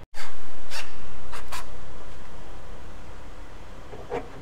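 A few short scratching and rubbing sounds of hand work at a car's boot lid, spaced irregularly, with a small cluster near the end.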